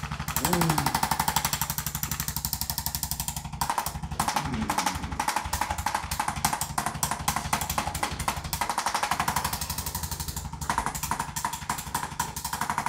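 Rapid, steady mechanical hammering from a motorised percussion device, many strokes a second.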